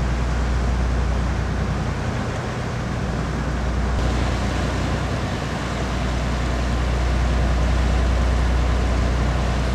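Motor boat's engines running steadily while underway, a constant low drone with an even hiss over it.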